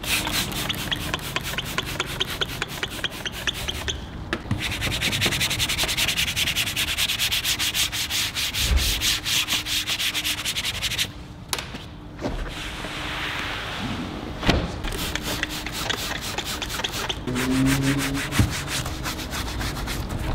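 Stiff detailing brush scrubbing cleaner into a car's door trim and door panel: quick back-and-forth strokes, stopping briefly a few times.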